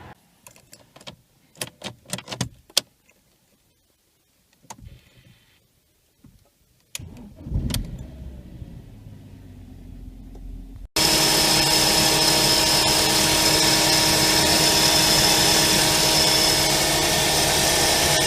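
A few clicks, then a cold start of the BMW E46's N42 four-cylinder engine about seven seconds in, which settles into a steady idle. From about eleven seconds in, the running becomes suddenly much louder and fuller, with a steady whine over it.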